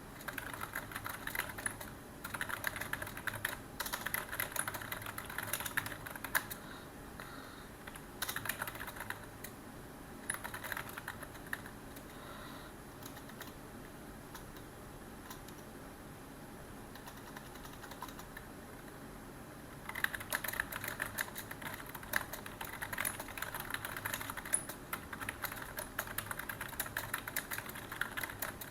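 Typing on a computer keyboard in bursts of rapid key clicks, pausing for several seconds near the middle and then resuming steadily, over a faint steady room hiss.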